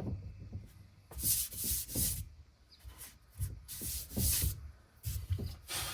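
Several short rubbing, scraping sounds with soft knocks between them, as of parts and wiring being handled during work on a car's gauge wiring.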